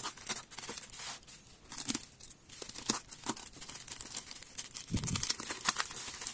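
Snap-off utility knife slicing through plastic wrap and packing tape on a cardboard box, with the plastic and bubble wrap crinkling: irregular scratchy cuts and rustles. A soft thump about five seconds in as the box is shifted.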